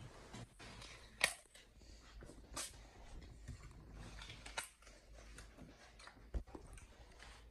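A chimpanzee biting and chewing into the rind of a small whole watermelon, with a few sharp wet crunches spread through, the loudest about a second in.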